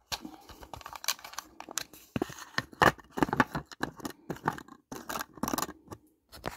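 Close handling noise: irregular clicks, scratches and scrapes of small objects being picked up and moved about.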